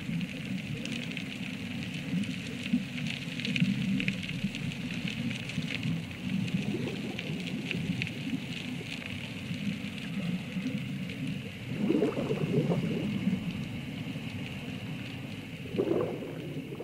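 Airlift suction pipe drawing silt and gravel off the seabed, heard underwater: a steady noisy hiss with many small crackles, and louder gurgling swells about twelve and sixteen seconds in.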